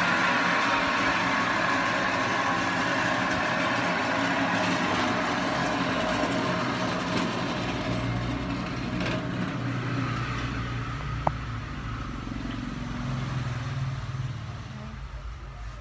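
Electric frozen-fish cutting machine running, a steady mechanical noise that slowly fades, with a single short click about eleven seconds in.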